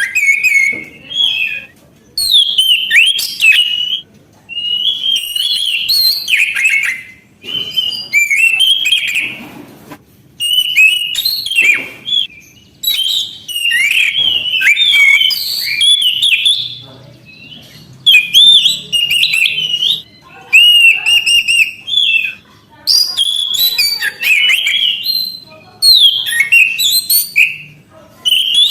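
Orange-headed thrush in full, vigorous song: a run of varied, quickly changing whistled phrases, each one to three seconds long, separated by short pauses.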